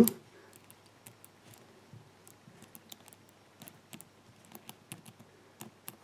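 Faint, irregular clicks of the brass number wheels of a Yale Y150/40 combination padlock being wiggled and turned by hand, with the shackle pulled, as each wheel is felt for binding at a true or false gate.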